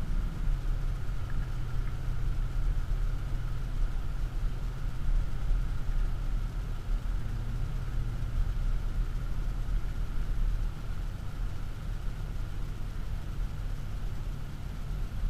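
Audi SQ7's 4.0 TDI twin-turbo V8 diesel heard from inside the cabin as a steady low drone under tyre and road noise, while the car cruises and slows gently. The engine note dips slightly about half a second in.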